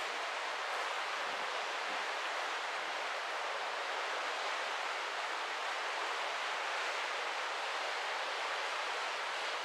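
Steady rushing hiss of wind and sea water streaming past a moving cruise ship, even and unbroken.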